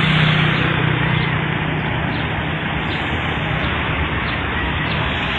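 Street traffic noise: a dense rush of road sound with a motor vehicle's engine humming steadily, strongest in the first second or so and then easing.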